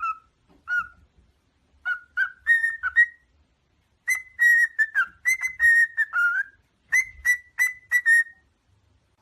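A parrot whistling a string of short notes, each dipping slightly in pitch. It starts with a few scattered notes, then, after a short pause about four seconds in, runs into a longer, faster phrase.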